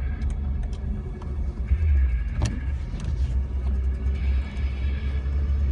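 Jeep Wrangler TJ running through snow, heard from inside the cabin as a steady low engine and road rumble, with one sharp click about two and a half seconds in.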